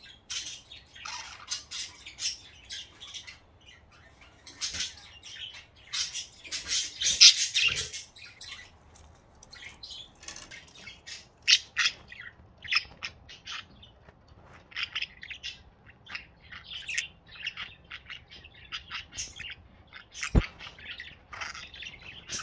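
Budgerigars chattering: a steady stream of quick chirps and short squawks, busiest a few seconds in and again near the middle. A single sharp click sounds near the end.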